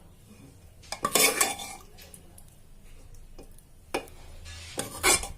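A spoon scraping and clinking against a cooking pot as chicken curry is spooned in for a biryani layer. There is a burst of scraping and clatter about a second in, a single knock near four seconds, and another clatter just before the end.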